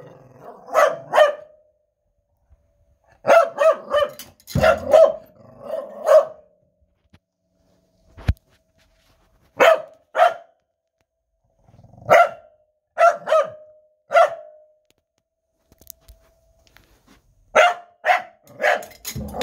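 Corgi barking in clusters of two to five short barks, with pauses of a second or more between clusters. A single sharp knock about eight seconds in.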